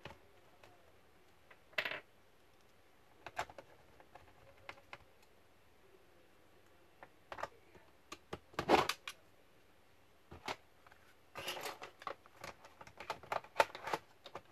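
Clicks and knocks of a Toshiba C55 laptop's plastic bottom case and battery being handled and pressed into place. They come scattered, with the loudest cluster of knocks a little past halfway and a busier run of quick clicks near the end.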